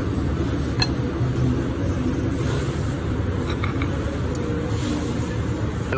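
Steady low background noise of a busy buffet dining room, with indistinct murmur and a few faint clicks like dishes or utensils.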